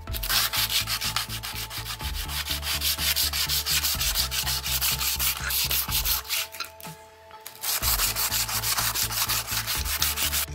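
Sandpaper rubbed by hand in quick back-and-forth strokes along a wooden hammer handle, with a short pause a little past the middle.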